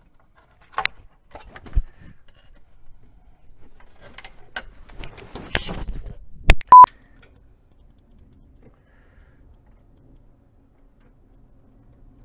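Scattered clicks and knocks of a valve cover and its rubber gasket being handled and fitted on an engine, with a sharp click and a short, loud, steady high beep just past halfway.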